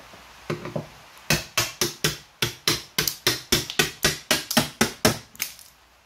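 Hammering on the dishwasher being stripped: a steady run of sharp strikes on metal, about four a second, starting about a second in and stopping shortly before the end.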